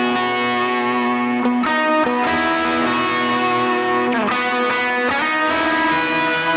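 Electric guitar played through a Line 6 POD X3 Live multi-effects unit on a light crunch distortion preset, with sustained notes ringing into each other and a bent note about four seconds in.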